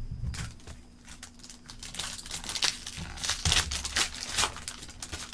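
Foil wrapper of a trading-card pack crinkling and tearing as it is opened. It is a run of irregular crackles, busiest in the middle.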